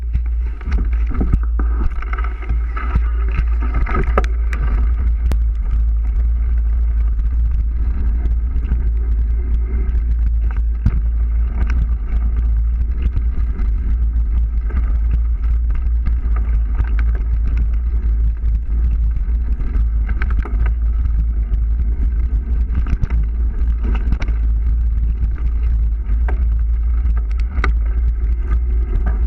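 Mountain bike riding fast down a rough forest trail, heard through a mounted camera: a steady low wind rumble on the microphone with tyre noise and frequent clicks and knocks from the bike rattling over the ground.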